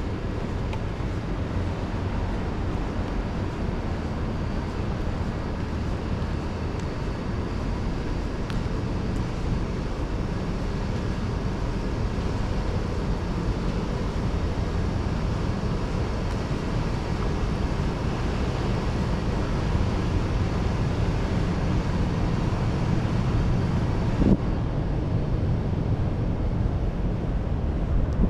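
City street ambience in rain: a steady wash of passing traffic and rain, with strong wind buffeting the microphone. A single brief knock comes near the end.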